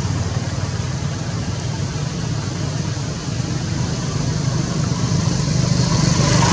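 A motor engine running steadily with a low hum, growing a little louder near the end.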